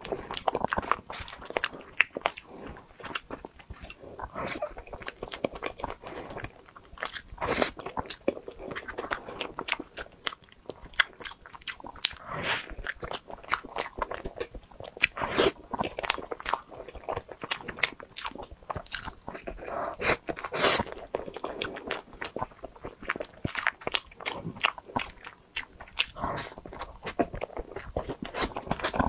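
Close-miked eating sounds of a person biting and chewing cream desserts: wet mouth smacks and many quick, uneven crisp clicks.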